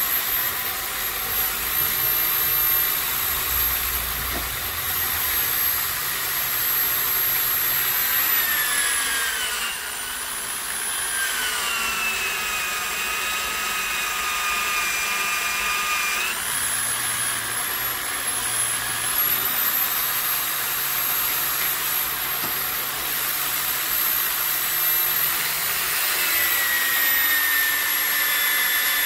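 Bench drill press running and drilling a hole through a metal pulley held in a drill vise. The high motor whine drops in pitch while the bit cuts under load, about a third of the way in and again near the end, and rises back in between.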